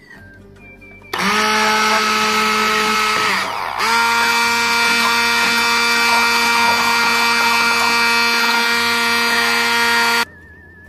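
Electric blender running on garlic and lemons: it starts up about a second in, drops out briefly a couple of seconds later, starts again, then stops suddenly near the end.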